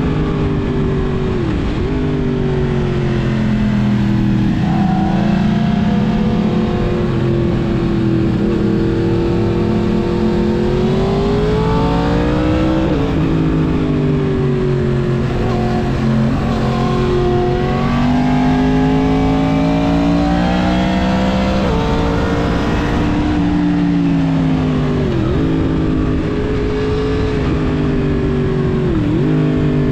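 Yamaha MT-10's crossplane inline-four engine running through a full Mivv exhaust under way, its pitch climbing and falling with the throttle. The pitch drops sharply at several gear changes: about a second and a half in, around the middle, and twice near the end.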